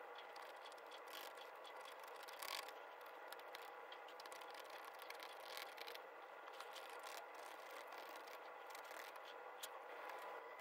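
Faint scratching and scribbling of coloured pencils on sketchbook paper, over a steady low hiss with a faint whine.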